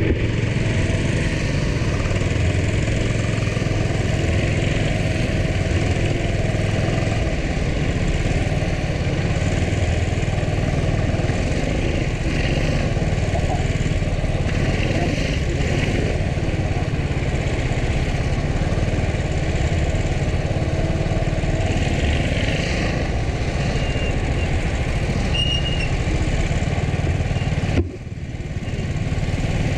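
Go-kart engine running steadily at low speed, heard close up from the kart itself. Near the end the sound dips out abruptly for a moment, then comes back.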